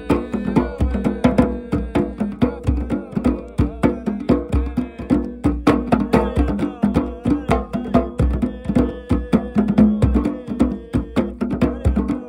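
Several goblet hand drums struck by hand together in a fast, dense rhythm, over a sustained pitched tone.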